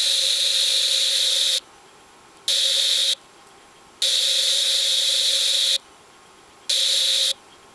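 Sony SRF-M85V Walkman radio hissing with static through its headphones, with a faint steady tone under the hiss; no station is coming in. The hiss cuts out abruptly four times, each for just under a second, and comes back.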